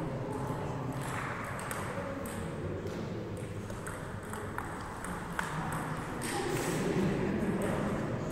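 Table tennis rally: the celluloid-style plastic ball clicking off the rackets and bouncing on the table, in a string of sharp irregular clicks.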